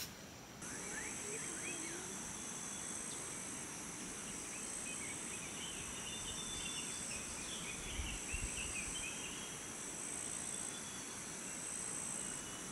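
Steady high-pitched insect chorus that comes in about half a second in and holds, with scattered bird chirps over it and a few low thumps about eight seconds in.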